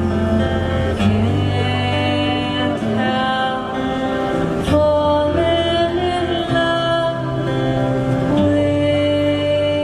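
A woman singing live into a microphone, accompanied by acoustic guitar, with long held notes.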